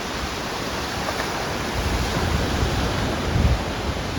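Surf washing on a beach, with wind rumbling on the microphone and a stronger gust about three and a half seconds in.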